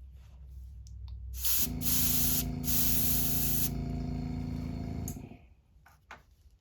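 Airbrush spraying paint in two hissing bursts with a short break between them, while a small airbrush compressor hums steadily and then cuts off about five seconds in.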